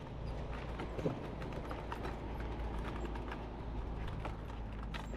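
Fishing cart being pushed along an asphalt path: the wheels rumble steadily over the pavement while the rods and gear on it rattle and click irregularly, with one louder knock about a second in.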